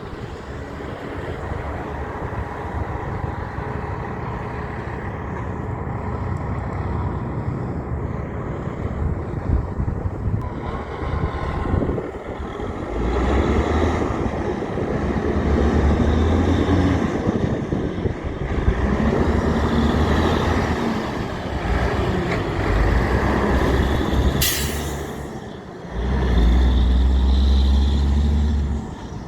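Heavy trucks running and passing on a road, their engine rumble swelling as they come by. There is a brief sharp hiss of air about three-quarters of the way through, typical of a truck's air brakes.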